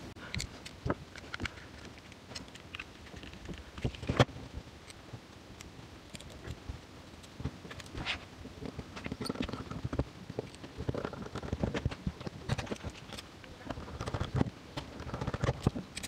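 Scattered light clicks and taps from a small precision screwdriver and the metal parts of an aluminium card wallet being handled as its screws are driven back in, busier in the last few seconds.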